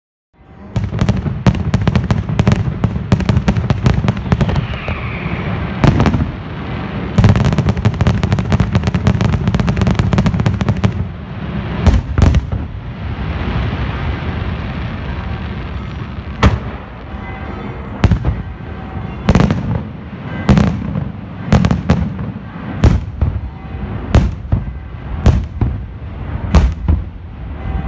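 Aerial fireworks display. It begins about half a second in with a dense, rapid barrage of bangs for about ten seconds, then crackle as stars fall, then loud shell bursts about one every second or so, over a continuous low rumble.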